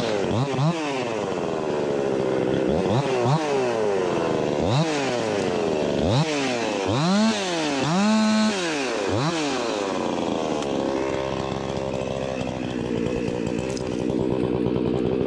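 Ported Echo 25T top-handle two-stroke chainsaw, started up suddenly and revved up and down about seven times, held high briefly around the middle, then settling into steadier, lower running for the last few seconds.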